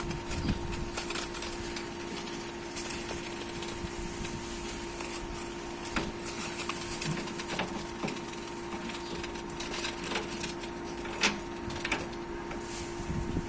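Irregular clicks, taps and scraping of hand tools working on copper refrigerant pipe, over a steady hum.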